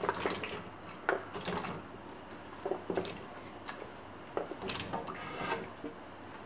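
Raw potato chunks pushed by hand off a cutting board, dropping into a pot of water in an irregular run of small plops and splashes.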